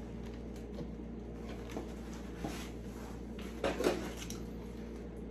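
Wooden beehive box being opened and handled: a few light knocks and scrapes of wood on wood, the loudest about four seconds in, over a steady low hum.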